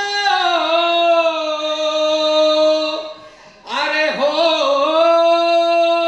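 A man singing long, drawn-out held notes in a high voice, in imitation of a Bihari folk-singing style. The first note steps down slightly after a moment, breaks off about three seconds in, and a second long held note follows.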